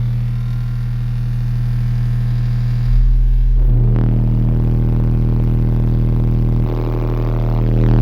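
Six 15-inch Soundstream XXX subwoofers in a car playing a loud, steady 40 Hz test tone at full power during a burp test. The tone grows harsher with added overtones about four seconds in and again near the end.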